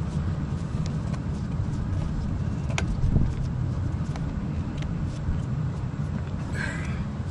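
Steady low rumble of a vehicle or nearby traffic, with scattered light clicks and one sharper click a little under three seconds in.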